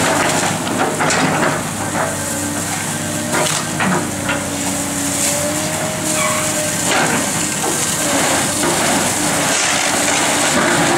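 Hydraulic excavator running under load as it pulls apart a building, its engine and hydraulics giving a steady drone with a held whine near the middle, over repeated cracking and crunching of wood and roofing debris. A hose spraying water adds a steady hiss.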